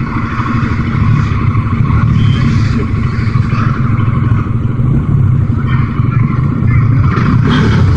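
Motorcycle engine running steadily, heard close up through a helmet-mounted microphone, with road traffic moving around it.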